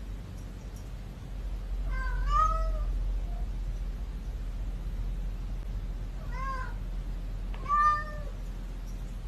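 A domestic cat meowing three times, each meow rising and then falling in pitch; the last, near the end, is the loudest.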